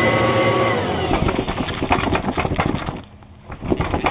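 Kirby G3 upright vacuum's motor running and winding down about a second in, followed by rapid, irregular rattling and flapping.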